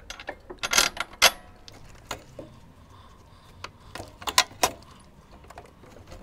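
Sharp metallic clinks and scrapes of a steel bolt knocking against the crash bar mount and motorcycle frame as it is pushed and wiggled in by hand, trying to catch its thread. The loudest cluster of clinks comes about a second in, with another run around four seconds in.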